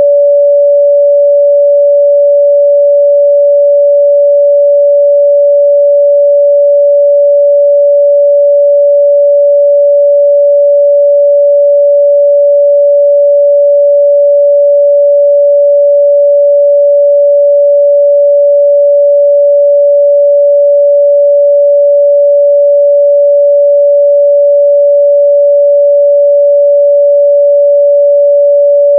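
A steady 574 Hz sine-wave test tone, one pure pitch held without change at a constant loud level.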